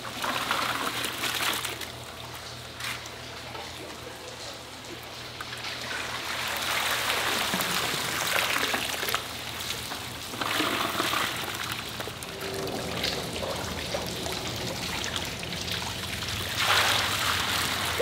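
Water splashing and pouring off a dip net as shiners are scooped out of a holding tank, coming in several bursts. A steady low hum runs underneath.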